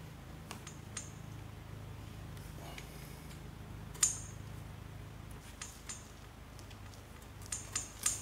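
Faint clicks and taps as a rubber gasket is worked onto the edge of a windshield glass by hand and with a small tool, with a sharper click about four seconds in and a cluster of clicks near the end. A low steady hum runs underneath and drops away about halfway through.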